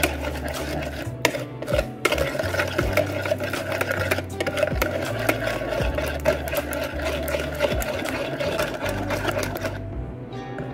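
Wire balloon whisk beating a runny egg and coffee flan mixture in a bowl: fast, steady clicking and scraping of the wires against the bowl, stopping shortly before the end.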